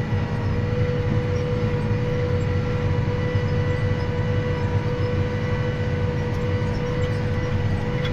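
Tractor engine running steadily under load while pulling a chisel plow, with a constant whine over the low engine drone.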